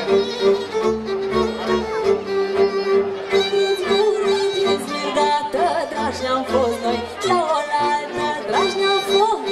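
Folk band playing, led by fiddles over a double bass. A woman's singing voice comes in about five seconds in.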